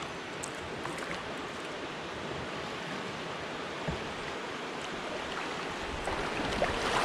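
Steady rush of river water running over shallow rapids, heard from low on a kayak, growing louder near the end as the boat nears the riffle.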